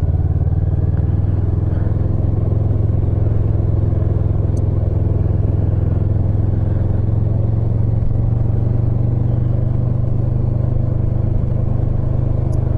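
Kawasaki motorcycle being ridden, its engine running steadily under a heavy low rumble of wind on the microphone.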